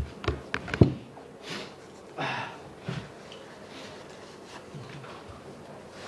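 A few sharp knocks and taps in the first second, the loudest near the end of that second, then several short noisy breaths from a person.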